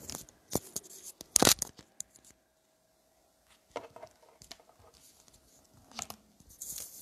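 Rustling and knocking from a handheld smartphone being handled close to its microphone, in irregular scrapes and clicks. A sharp, loud knock comes about a second and a half in, and a shorter cluster of rustles comes near the end.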